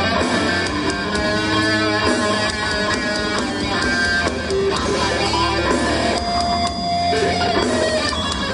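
A doom metal band playing live, with distorted electric guitar over bass and drums. A lead guitar line holds long sustained notes.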